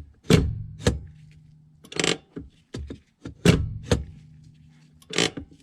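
The repaired parking brake pedal and release handle of a 2010 Honda Ridgeline being worked by hand: a series of sharp mechanical clacks, two of them followed by a low ringing that fades over about a second and a half. The mechanism is working again.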